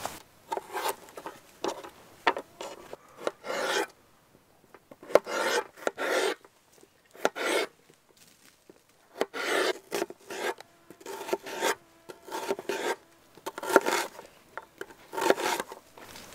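Chef's knife slicing red bell pepper and red onion on a wooden cutting board, in short irregular strokes that come in runs with brief pauses between them.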